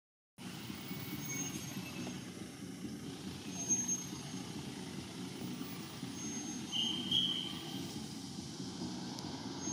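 A steady low drone like a motor running. A few short, high chirps come over it, the clearest about seven seconds in.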